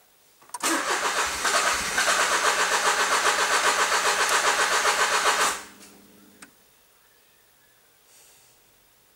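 Ferrari F430's V8 cranking on the starter for about five seconds with an even pulsing beat, never catching, then cutting off, followed by a single click about a second later: a failed start on an engine with damage.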